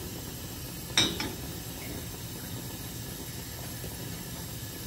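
Beaten egg frying as a thin sheet in a non-stick pan over a gas flame: a faint steady sizzle. A single sharp knock comes about a second in, the spatula against the pan.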